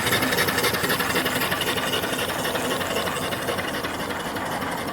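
Small homebuilt 3–4 horsepower steam engine running on its boiler: a fast, steady clatter of rapid, even strokes that grows gradually quieter.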